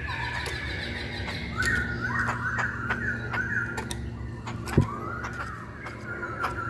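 Poksay Hongkong (a laughingthrush) singing: whistled notes and quick warbled phrases that glide up and down, with scattered sharp clicks. One loud thump comes a little before five seconds in.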